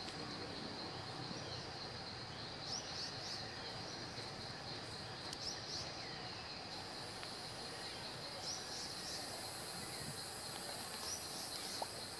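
Insects droning steadily on one high pitch over a background hiss, with a few short high chirps now and then.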